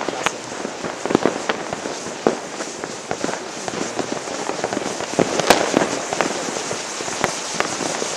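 New Year's Eve fireworks: many scattered sharp bangs over a steady crackle, with the loudest bang about five and a half seconds in.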